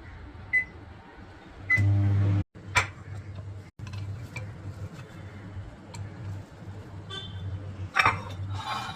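Microwave oven: two short high beeps, then a brief louder hum about two seconds in that cuts off sharply, followed by a low steady hum with occasional clicks; a clatter about eight seconds in.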